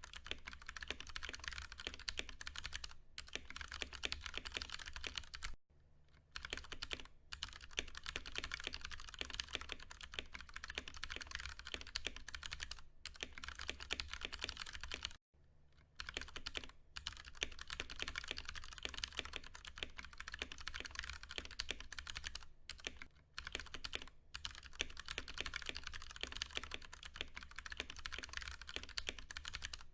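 Continuous fast typing on a Ducky One 2 Mini mechanical keyboard with Cherry MX Brown switches: a dense, rapid run of keystrokes, broken by brief pauses about six and fifteen seconds in.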